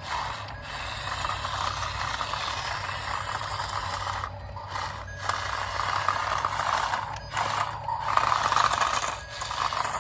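Small electric drive motor and plastic gearbox of a toy RC dump truck whirring as it drives over dirt and small rocks. The whir stops and starts again several times in the second half.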